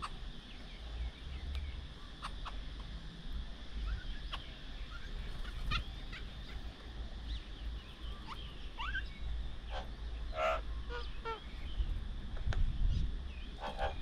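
Several birds calling at a feeding table: scattered short chirps and whistled glides, with two louder calls about ten and fourteen seconds in, over a steady low rumble.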